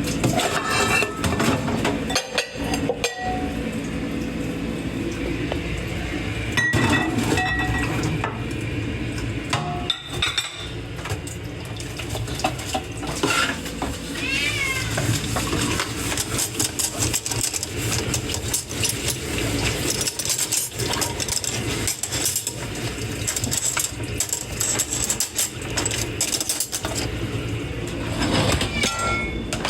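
Dishes and cutlery being hand-washed in a kitchen sink: a steady wash of water with frequent clinks and clatters of plates and forks. A cat meows in the background.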